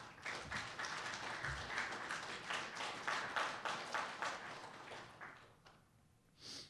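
Audience applauding, a dense patter of many hands clapping that fades out about five seconds in.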